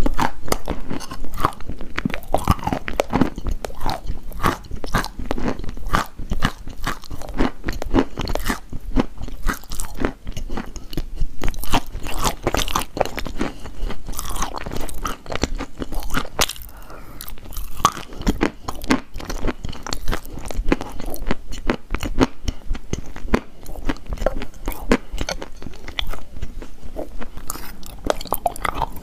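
Close-up crunching and chewing of chalk in the mouth: repeated bites snapping the stick, then dense, irregular crackling as the pieces are ground between the teeth.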